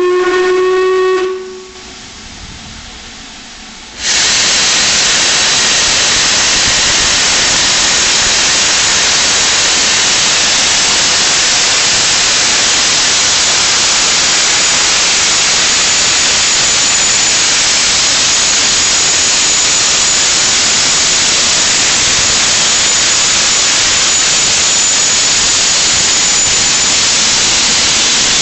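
LMS Jubilee class steam locomotive Leander gives a short whistle, one steady note lasting about a second and a half. About three seconds later comes a loud, steady hiss of escaping steam that runs on without a break.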